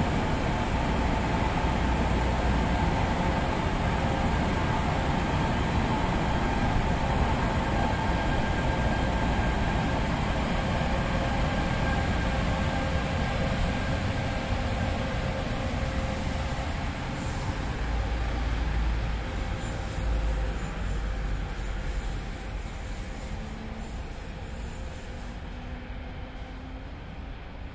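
NJ Transit commuter train running past, a steady rumble with a few high ringing tones from the wheels, fading away over the last third as the train moves off.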